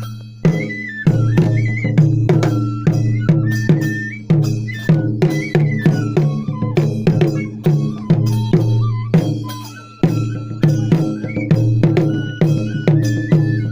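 Traditional Japanese festival music: a high flute melody moving in steps over steady, rapid drum and small-cymbal beats.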